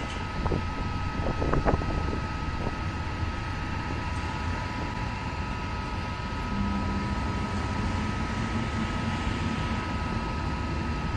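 Metronom double-deck regional train rolling past slowly: a steady rumble of wheels on rail, with a few clicks in the first three seconds and a low hum that comes in about six and a half seconds in. Two steady high tones run underneath.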